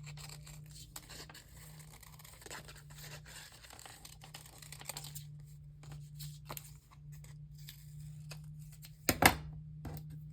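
Paper craft sheets of stickers and rub-ons rustling and crinkling as they are handled, with tearing sounds, and a single sharp thump about nine seconds in.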